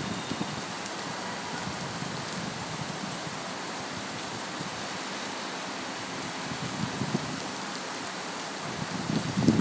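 Heavy rain falling steadily as an even hiss, with a few louder, lower gusty bursts about two-thirds of the way through and again near the end.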